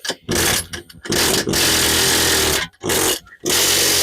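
A power tool running in repeated bursts of about a second each with short pauses between them, working to break loose a front wheel bearing hub seized in place by corrosion.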